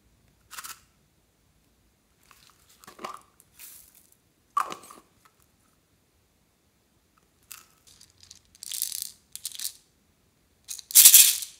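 Small hard-plastic slime containers handled close to the microphone: scattered short clicks, taps and crinkly rustles, with a sharp click about four and a half seconds in and the loudest crinkly scrape near the end.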